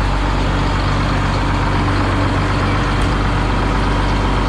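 John Deere 4555 tractor's six-cylinder diesel engine idling steadily just after a start, left running to warm up. A brief click about three seconds in.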